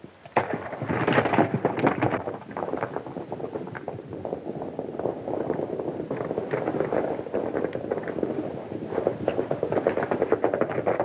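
Several horses galloping on a dirt yard: a dense, irregular clatter of hoofbeats, loudest about a second in and again near the end as riders come close.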